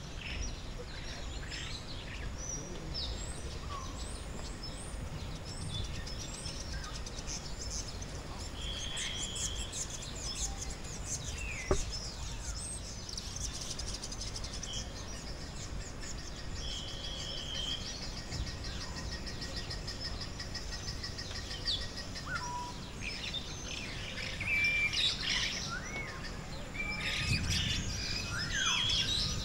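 Several birds of an African aviary calling at once: short whistled notes, rising chirps and a quick trill overlapping, some clear whistles held about a second, over a steady low background noise. One sharp click sounds a little before the middle.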